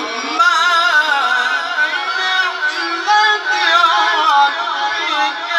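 A man reciting the Quran in a high, melodic chanting voice over a microphone, the held notes ornamented with quick wavering trills as the line rises and falls.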